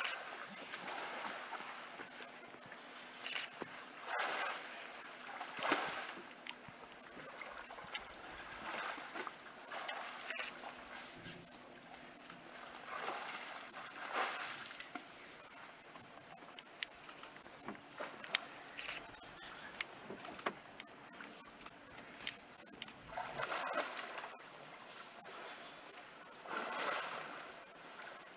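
Steady high-pitched drone of rainforest insects. A second, slightly lower insect tone drops out about two-thirds of the way through, and faint irregular rustles and clicks come and go.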